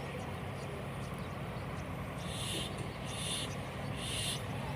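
Steady low background hum, with three short, high rasping animal calls about a second apart starting about two seconds in.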